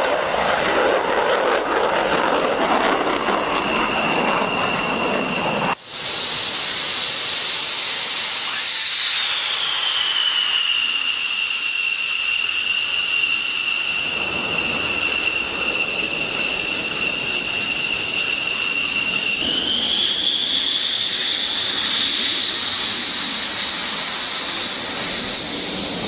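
Jet aircraft engine running with a high turbine whine over a steady rush. The whine drops in pitch about nine seconds in, then rises again around twenty seconds in, with a brief break near six seconds.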